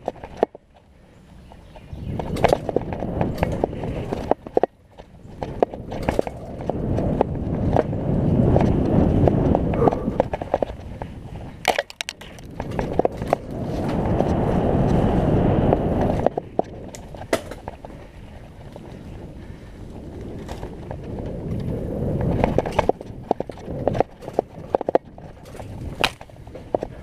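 Mountain bike ridden down a wet forest singletrack: tyres rolling over dirt, roots and leaves, with the bike frame and chain rattling in many sharp clicks and knocks. Under it a low rushing noise of wind on the microphone rises and falls.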